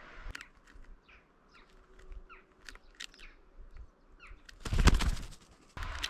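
Small birds chirping with short, quick calls. About five seconds in comes a loud, brief flurry of wing flapping.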